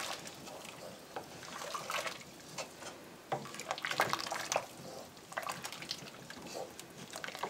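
Wooden spoon stirring a large stainless steel pot of sorrel steeped with spices and sugar. The liquid sloshes and swirls, with irregular light clicks of the spoon against the pot.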